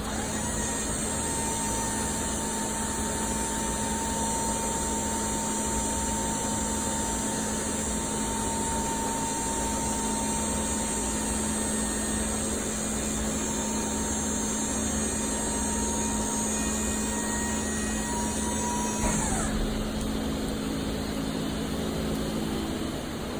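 An electric motor running steadily with a hum and a high whine. It is switched off about 19 seconds in, and its pitch falls as it spins down.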